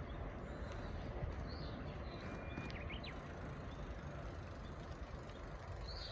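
Wind buffeting the microphone as a steady low rumble, with a few faint bird chirps and a short thin whistle.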